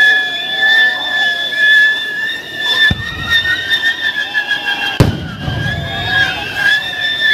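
Several ground fireworks burning at once with a steady high whistle and many smaller warbling whistles over it. Two loud bangs come about two seconds apart near the middle.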